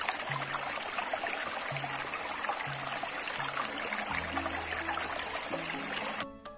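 Shallow stream running and splashing over rocks, a steady rushing that cuts off abruptly near the end.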